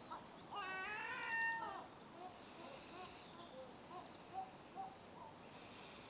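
Gull calling: one long, wavering cry with a ringing, overtone-rich tone lasts just over a second, starting about half a second in. A series of short, fainter calls follows.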